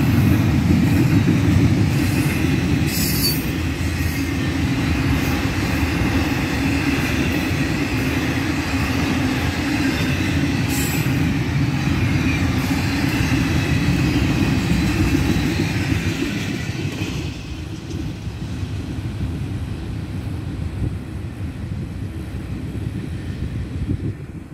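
Florida East Coast Railway intermodal freight cars rolling past: a steady rumble of wheels on rail with a thin high wheel squeal and a few sharp clicks. The sound eases off after about seventeen seconds as the last cars go by.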